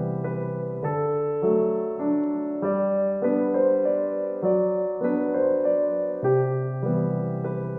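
Background music: a gentle piano tune, its notes and chords changing about once or twice a second.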